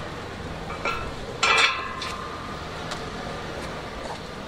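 Steel line-array hanging frame clanking against the speaker cabinet as it is fitted on: a light knock about a second in, then a louder ringing metal clank, followed by a few faint ticks.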